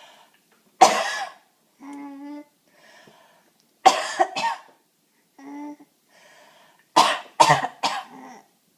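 A woman coughing hard in three fits: one cough, then two, then three in quick succession. After the first two fits a small child gives short, high-pitched laughing sounds.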